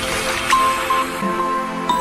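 Background music for a logo outro. A bright high note comes in sharply about half a second in, and another accent comes near the end.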